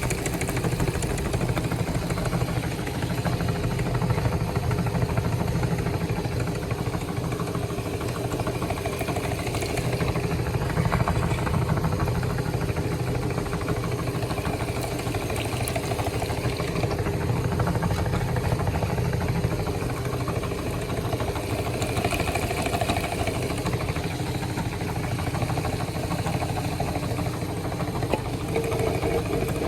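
Meat grinder motor running steadily with an even hum.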